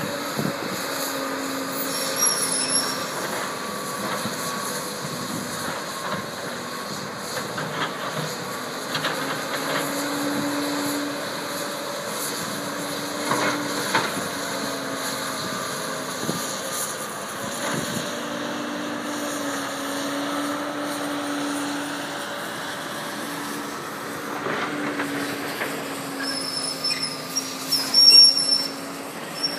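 Hydraulic excavator working, its diesel engine droning and rising and falling in pitch as it digs, with occasional metallic clanks and a brief high squeal near the end.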